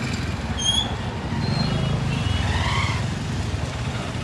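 Busy street traffic, with motorcycle and car engines running close by and a steady low rumble. A short, high-pitched beep sounds once, under a second in.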